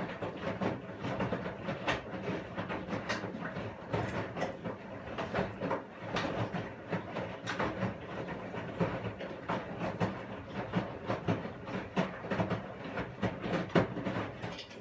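Washing machine running: a low hum with a dense, irregular stream of clicks and knocks as the drum turns, stopping abruptly at the end.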